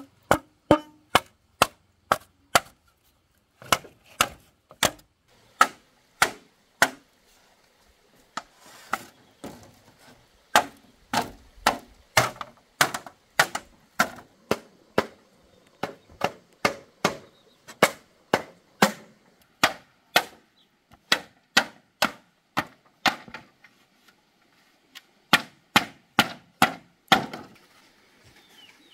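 Machete chopping wood: a steady run of sharp strikes, about two a second, with a couple of short pauses.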